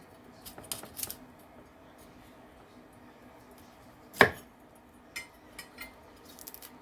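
Knife cutting broccoli on a cutting board: scattered light clicks and cuts, with one much louder knock about four seconds in.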